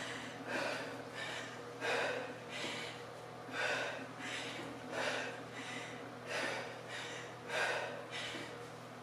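A woman breathing hard and rhythmically through a set of one-arm kettlebell swings: short, forceful breaths, about one every second and a half, keeping time with the swings.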